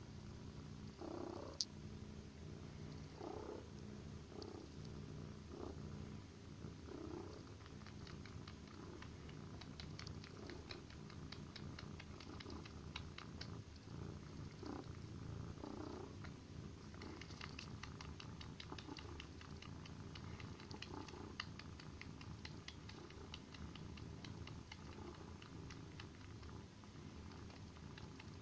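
Kitten purring steadily while it suckles on a fluffy bath rug as if nursing. From about a third of the way in, rapid faint clicking sucking sounds run over the purr.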